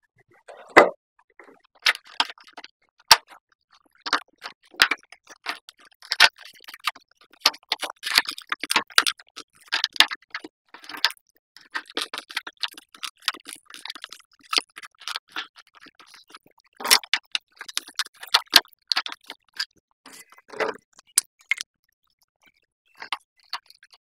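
Irregular clicks, taps and scrapes of hands refitting the wiring and bottom cover on an electric water heater, with no steady running sound.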